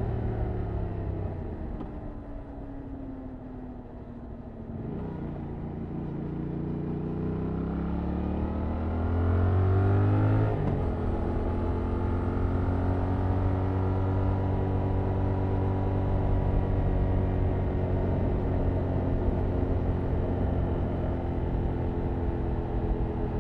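2021 Yamaha MT-07's 689 cc parallel-twin engine through its stock exhaust, under way. The revs fall for a few seconds, then climb steadily for several seconds, drop sharply about ten seconds in, and settle into a steady cruise.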